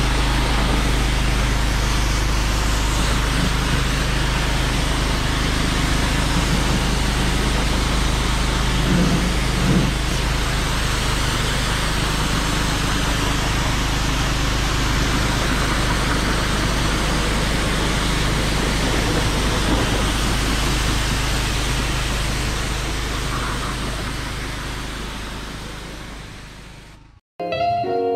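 Kärcher K4 pressure washer running, its jet hissing steadily onto the car and the block paving, over the steady low hum of a petrol generator. The spray noise fades away near the end, and guitar music starts in the final second.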